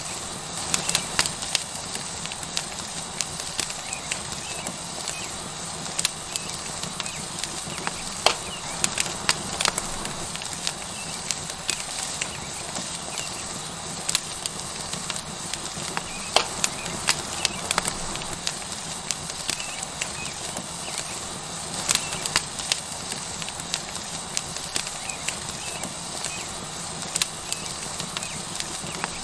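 Tomahawk steak sizzling on a hot rock over a wood fire, a steady hiss with the burning wood crackling and popping in frequent sharp, irregular snaps.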